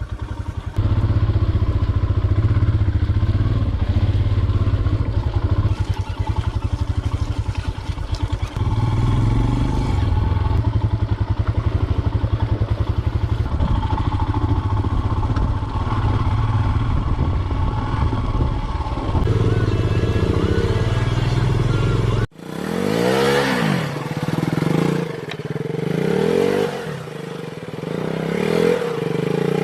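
Motorcycle engine running steadily under way. After a cut about 22 seconds in, a motorcycle engine revs up and down repeatedly, its pitch rising and falling.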